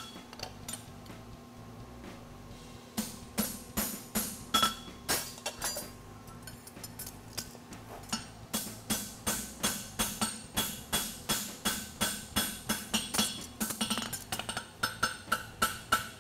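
Farrier's hammer striking a steel horseshoe on an anvil, each blow clinking with a short ring. There are a few blows, a pause of a couple of seconds, a short run, another pause, then steady blows about three a second through the second half.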